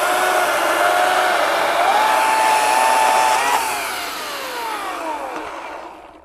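Ryobi 40V HP brushless 20-inch cordless chainsaw running under load as it finishes a cut through a log, its electric motor whining steadily. About three and a half seconds in the trigger is released and the motor and chain wind down with a falling whine, stopping just before the end.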